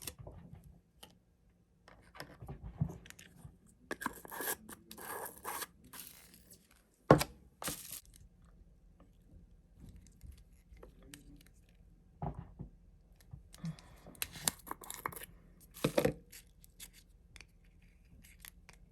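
Product packaging being handled and opened by hand: short bursts of crinkling and tearing, with a couple of sharp clicks about seven and eight seconds in.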